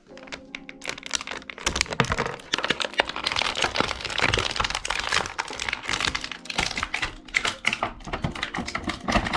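Plastic toy packaging and small plastic accessories being handled as action figures are unpacked: a dense run of small clicks, crackles and rustles that thickens about two seconds in.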